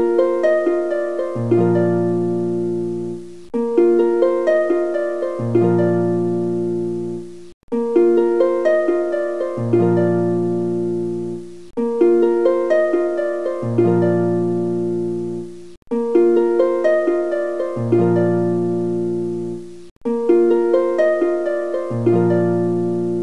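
Background music of plucked strings: a short melodic phrase looping about every four seconds, with a brief break between repeats.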